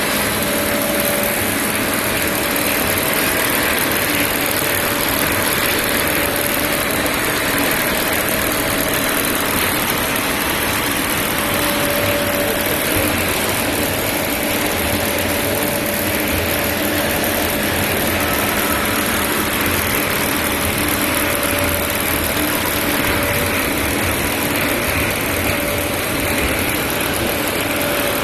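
Dry pet food production line machinery running: a steady, even mechanical hum and whir with a faint steady tone, no pauses or sudden noises.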